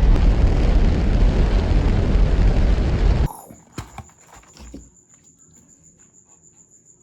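Rocket-launch sound effect: a loud, even rumbling rush that cuts off suddenly about three seconds in. A faint, thin, steady high trill and a few small clicks follow.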